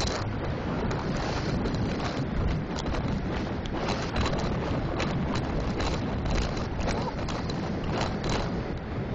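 Wind rushing and buffeting over the microphone of a bicycle coasting fast down a steep highway grade, a steady rush that swells and dips in gusts.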